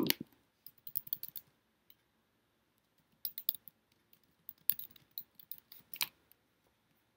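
Typing on a computer keyboard: light key clicks in a few short runs with pauses between.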